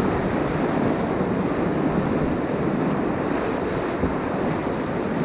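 Whitewater rapid rushing steadily, heard close up from a kayak running through it, with wind buffeting the microphone.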